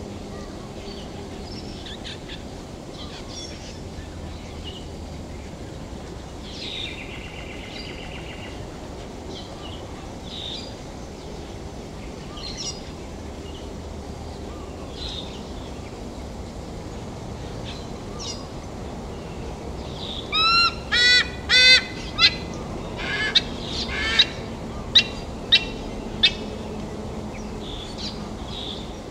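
White-bellied sea eagle calling: a run of about nine loud, goose-like honking 'ark' notes late on, the first three longer and the rest short and spaced out. Before the calls, only faint chirps of small birds.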